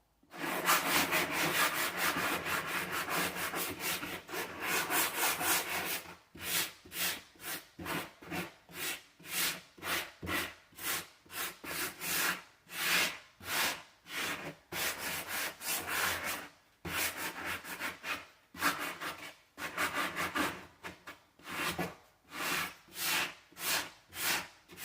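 Sandpaper rubbing on a wooden door frame, sanding off raised wood and scratches. It is a continuous scratching for about the first six seconds, then turns into separate back-and-forth strokes at about two a second.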